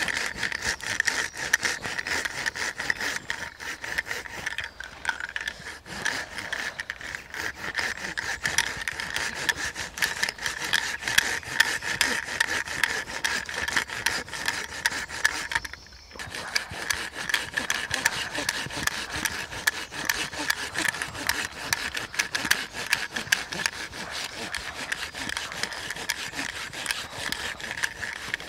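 Hand saw cutting through a fallen conifer log with quick, continuous rasping strokes. There is a short break a little past halfway.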